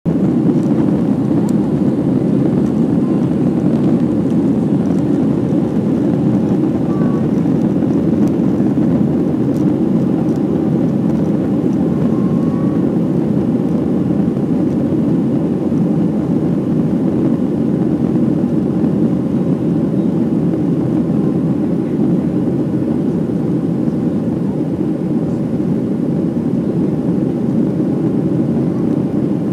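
Steady cabin noise of a jet airliner climbing after takeoff, heard from a window seat: an even, low rumble of the engines and rushing air.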